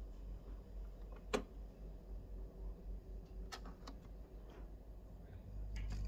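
Sharp mechanical clicks from the front-panel controls of a Technics SL-BD20 automatic turntable being pressed: one about a second and a half in, two close together near the middle, and more near the end, over a low steady hum.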